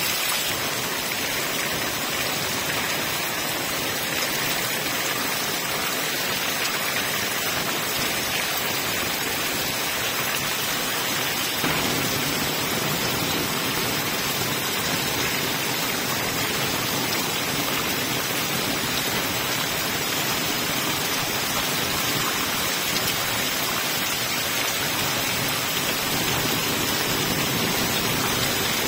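Heavy rain falling steadily, an even hiss of drops splashing on wet ground and puddles.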